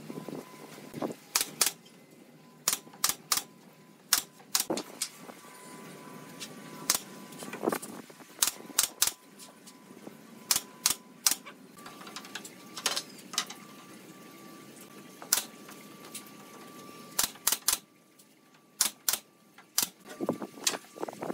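Irregular sharp knocks and clacks of wooden pallet slats being handled and set against one another, often in quick runs of two to four, over a faint steady whine.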